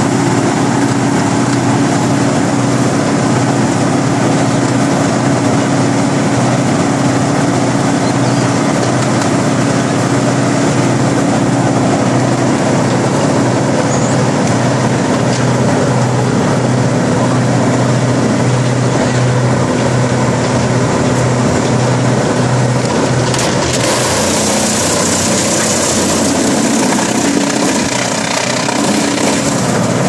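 Morbark 40/36 whole-tree chipper's diesel engine running loud and steady. A bit over three-quarters of the way in, a log reaches the chipper and a loud crunching, splintering noise of wood being chipped takes over.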